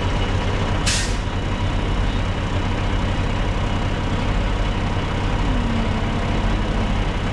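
Peterbilt semi truck's diesel engine idling steadily, with one short sharp hiss about a second in.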